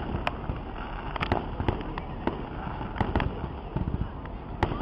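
Distant fireworks bursting: about ten sharp bangs and pops at irregular intervals over a steady background noise.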